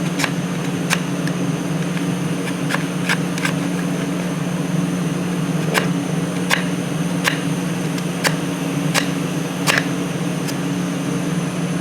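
Steady low mechanical hum, like an air conditioner or fan running, with light scattered clicks and taps about once a second.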